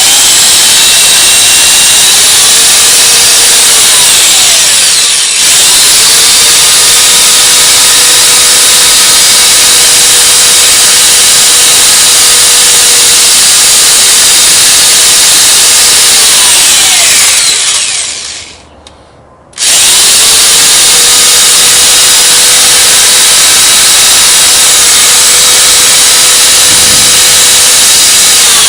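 Electric drill running steadily with a whine, drilling the pre-drill hole for a 10-32 tap into the lathe carriage. It stops briefly about two-thirds of the way through, winding down, then starts again.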